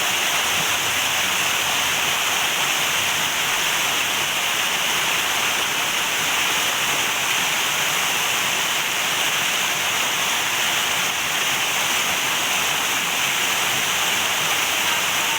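Steady rush of flowing river water, an even unbroken noise with no change in level.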